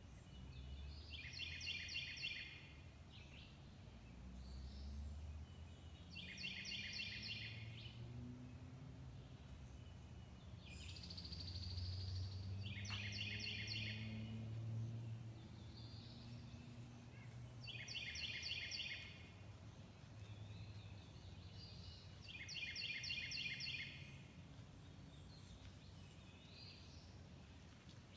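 A short, high-pitched trilled call repeated about every five seconds, five times, over a faint low hum.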